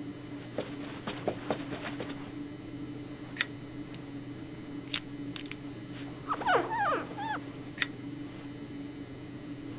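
Cartoon foley of small mechanical goggles and lens attachments being handled: a scatter of light clicks, then single sharp clicks every second or two. About six seconds in comes a brief squeaky whine that rises and falls, all over a steady low hum.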